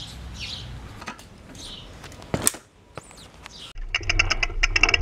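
A bird chirps repeatedly, about twice a second. About four seconds in, a bicycle starts rolling: rapid ticking over a low rumble, picked up by an action camera mounted on the bike's frame.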